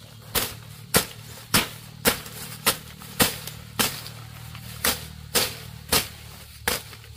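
Repeated sharp strikes at a steady pace of about two a second, like chopping or hammering, over a low steady hum.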